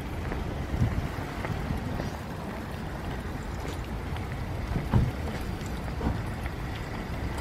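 Outdoor street ambience dominated by wind rumbling on the microphone of a handheld camera being walked along. A couple of brief low thumps come about a second in and again about five seconds in.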